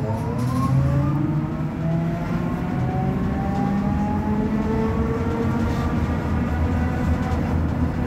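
Trolleybus electric traction motor whining as the bus pulls away: several tones rise together in pitch over the first few seconds, then level off, over the steady rumble of the ride.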